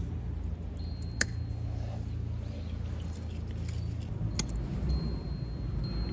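Two sharp clicks, one about a second in and another past four seconds, over a steady low rumble.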